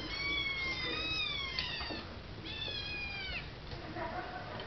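Five-week-old kittens meowing: about three high-pitched cries, each falling in pitch, the first two overlapping in the first two seconds and another around three seconds in. They are hungry kittens crying for their milk.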